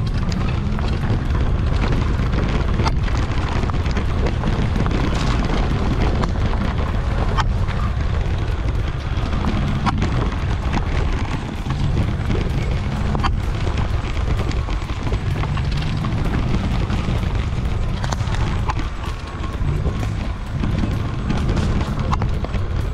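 Wind rumbling on a GoPro's microphone while riding an e-bike along a dirt forest trail. Sharp knocks and rattles from the bike come here and there as it goes over bumps.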